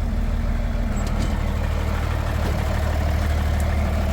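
Old farm tractor's engine running steadily.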